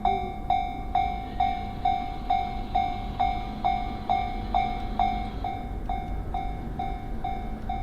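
Japanese railway level-crossing warning bell ringing in a steady clang, a little over two strikes a second. Underneath is the rumble of a train going through the crossing, which thins out about five and a half seconds in.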